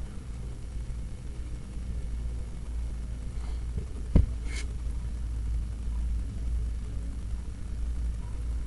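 Steady low rumble, with one sharp knock about four seconds in.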